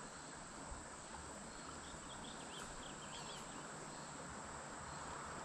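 Steady high-pitched insect trill, like crickets, over faint outdoor ambience, with a few faint chirps about halfway through.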